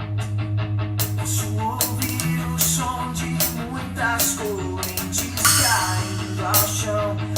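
Rock-style song with guitar and bass. A drum kit comes in with sharp hits about a second in, and there is a cymbal wash a bit past the middle.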